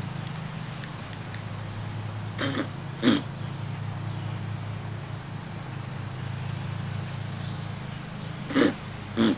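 A man making short throat sounds in two pairs, the pairs about six seconds apart, over a steady low hum.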